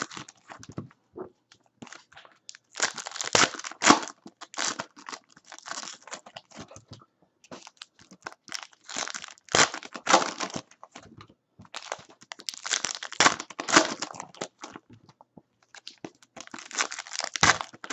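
Foil trading-card packs crinkling and being torn open by hand, in several separate bursts of rustling with quieter gaps between.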